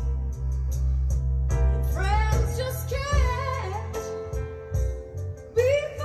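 A song played through a pair of large three-way home hi-fi loudspeakers driven by a valve amplifier; the preamp, amp and speakers are still being run in. A deep bass line and steady cymbal ticks play throughout, and a singer's voice comes in about two seconds in and rises again near the end.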